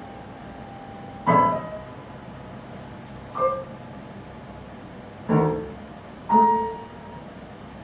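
Sparse improvised piano: four single notes or small chords, each struck and left to ring out, with pauses of one to two seconds between them.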